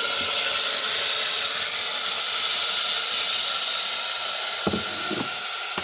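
Diced fresh tomatoes sizzling loudly and steadily as they hit hot coconut oil and cumin seeds in a small saucepan, easing a little near the end. Two short knocks about five seconds in.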